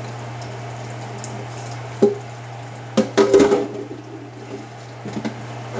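Dishes being washed by hand in a sink: water sloshing, with a clank of a metal pot about two seconds in and a louder clatter of pots and dishes about a second later. A steady low hum runs underneath.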